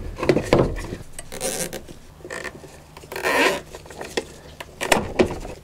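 Nylon cable tie being pulled tight through its ratchet head, giving short zipping rasps, then a few sharp clicks near the end.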